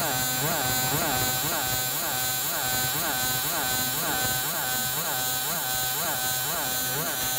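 Fiber laser marking machine's scanner head buzzing as it deep-marks a silver ring. A whine rises and falls about three times a second over a steady high tone.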